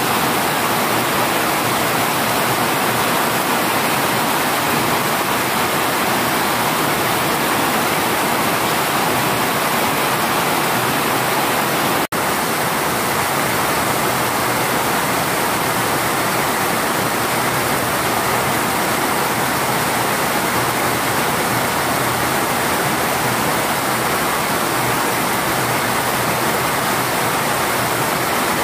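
Heavy rain pouring steadily onto large broad leaves, a dense continuous hiss with one momentary break about twelve seconds in.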